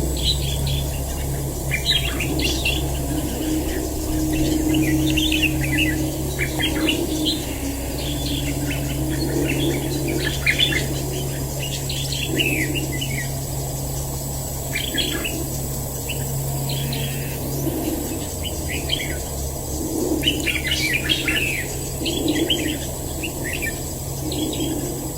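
Red-whiskered bulbuls singing and calling in short, repeated phrases, over a steady low hum.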